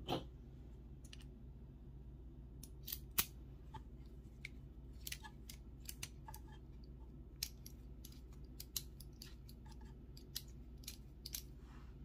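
A brass key and a lock cylinder being handled: scattered sharp metallic clicks and taps as the key is slid into the cylinder's keyway, the loudest about three seconds in.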